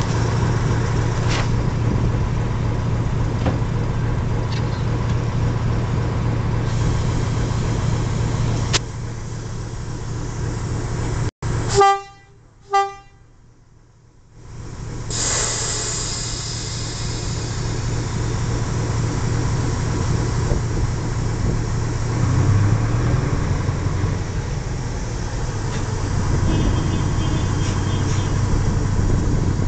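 British Rail Class 03 diesel shunter's engine running with a steady low drone as the locomotive moves slowly. About twelve seconds in come two short horn toots, under a second apart.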